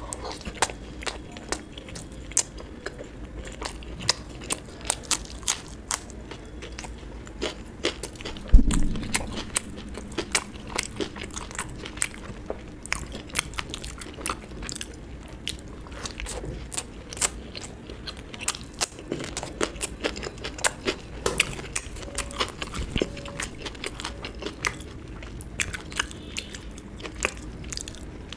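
A person eating close to the microphone: biting and chewing, with many sharp, crisp clicks several times a second. A single loud, low thump about a third of the way in.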